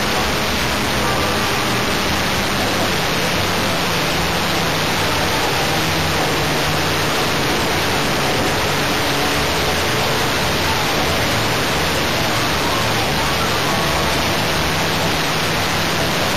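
Steady rushing noise of wind and a two-stroke O.S. Max .25 LA glow engine running in flight, picked up by a camera mounted on the plane, with faint engine tones that shift a little in pitch.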